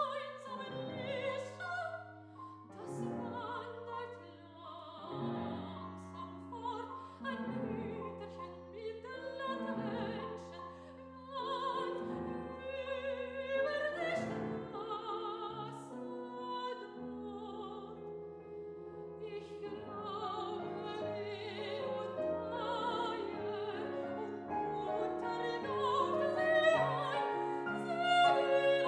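Classical art song: a female voice singing with vibrato over grand piano accompaniment, the music swelling louder near the end.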